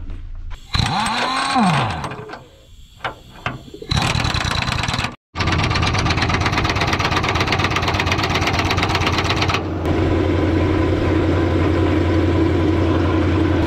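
Pneumatic impact wrench hammering large nuts up long threaded rods, in long runs of rapid hammering with a brief break about five seconds in. Before it, some clatter and a short rising-then-falling tone.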